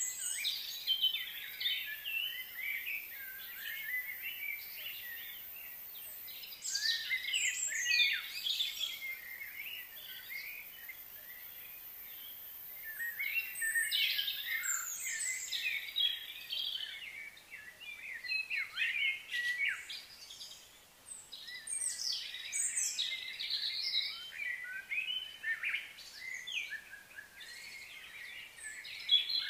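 Many small birds chirping and singing over one another, in quick high clusters with short lulls in between.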